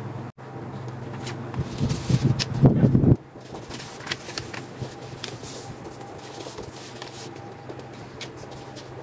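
Sheets of paper rustling and sliding as they are laid on and squared up on the metal table of a spiral-binding punch, with soft taps and scrapes. A louder, rougher rustling and handling noise cuts off abruptly about three seconds in.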